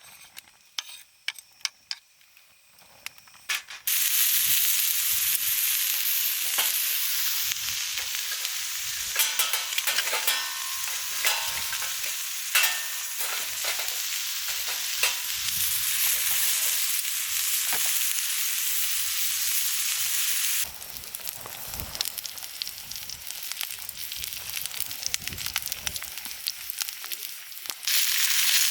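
Food sizzling in a hot pan, starting suddenly about four seconds in after a few light taps and clicks. It drops to a quieter crackle about 21 seconds in and turns loud again near the end.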